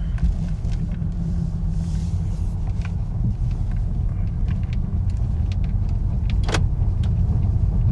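Steady low rumble of a 2018 Honda Accord's turbocharged 2.0-litre four-cylinder running at low revs, heard from inside the cabin. A few faint light clicks, and one sharper click near the end.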